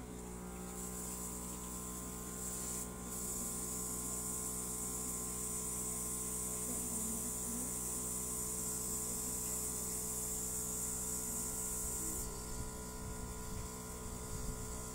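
Airbrush compressor humming steadily while the airbrush sprays with a high air hiss. The hiss breaks off for a moment about three seconds in and fades about twelve seconds in, as the trigger is eased.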